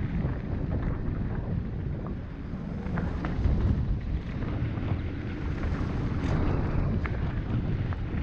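Wind rumbling on the camera microphone over a Cube Fritzz mountain bike rolling fast down a dirt and gravel trail, its tyres crunching over loose stones, with scattered clicks and rattles from the bike over bumps.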